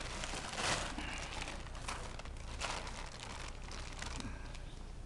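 Thin plastic carrier bag rustling and crinkling in several short bursts as a fish is put into it.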